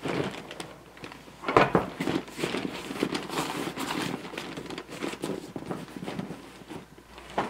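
A fabric tool bag being handled: straps and cloth rustling and crinkling in irregular bursts, with one dull thump about a second and a half in.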